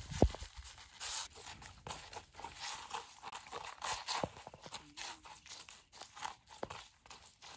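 Salt poured from a plastic jar onto chopped herbs in a leaf, then a thin wooden stick stirring and scraping the mix against the leaf: irregular soft scratches and taps, with a sharper tap just after the start.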